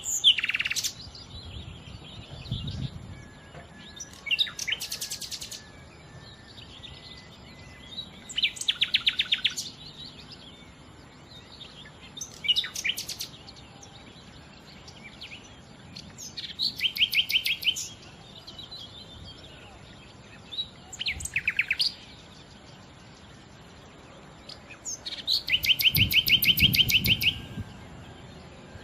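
Nightingale singing: short phrases every few seconds with pauses between them, many built of fast runs of repeated notes. The longest and loudest run comes near the end.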